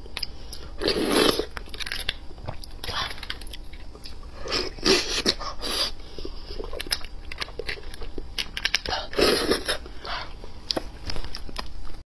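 Close-up mouth sounds of a person eating soft braised beef bone marrow: wet chewing, smacking and sucking at the bone, a run of short clicks with a few louder bursts about a second in, around five seconds and near the end.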